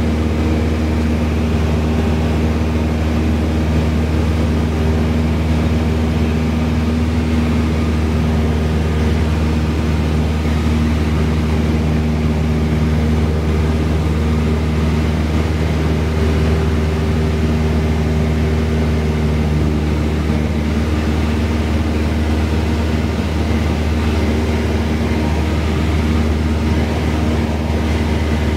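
Piston engine and propeller of a single-engine light aircraft running steadily in flight, a constant drone heard inside the cockpit; some of its tones shift slightly about two-thirds of the way in.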